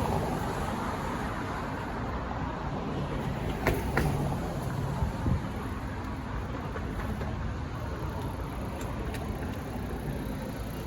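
Road traffic passing through a busy intersection, a steady rush of car tyres and engines, with a few short sharp knocks about four and five seconds in.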